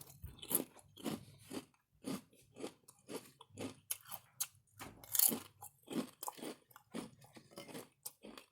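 A person chewing crunchy food with short, sharp crunches about two a second.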